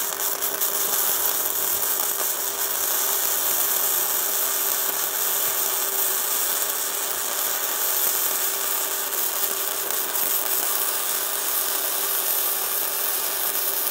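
Gasless flux-cored MIG welding arc from an Easymix 201 welder laying a continuous bead: a steady crackling hiss with a faint steady hum underneath.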